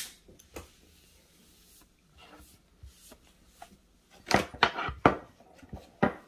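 Handling sounds as a bottle of sweet soy glaze is got ready over the plate: a sharp click at the start, then a cluster of knocks and rustles about four seconds in, and another knock near the end.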